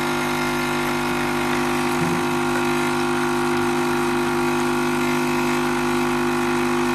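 In-room coffee machine's pump running with a steady, even hum as it dispenses. The machine is set to the blue (cold) side, so it is pumping out cold water rather than hot coffee.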